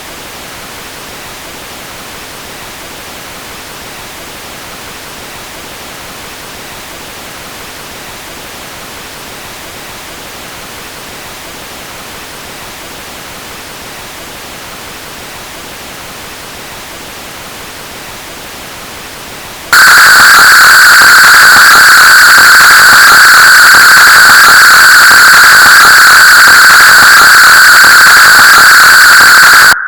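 Synthetic white noise run through Csound filter opcodes, a steady hiss with no pitch. For about two-thirds of the time it is a moderate, even hiss. Then it jumps suddenly much louder and harsher, with a strong ringing band in the mid-treble and several fainter higher bands, which matches the stage where the areson notch filter is applied three times.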